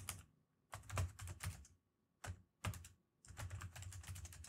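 Typing on a computer keyboard: a few scattered keystrokes, then a quick run of keys near the end.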